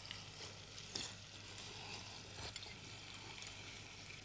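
Faint steady sizzling of small potatoes caramelising in butter and sugar in a pan, with a few light clicks of spoons against plates.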